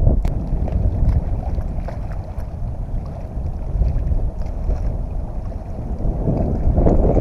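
Wind buffeting the microphone in a heavy rumble, with small waves lapping against shoreline rocks.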